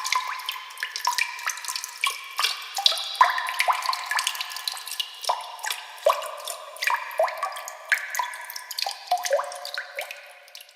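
Water dripping: many irregular drops plinking into water, several a second, each with a short pitched ring.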